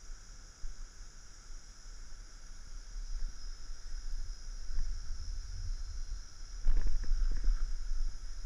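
Wind rumbling on a body-worn camera's microphone over a steady high hiss of outdoor ambience. About seven seconds in comes a louder burst of rumbling with a few short knocks.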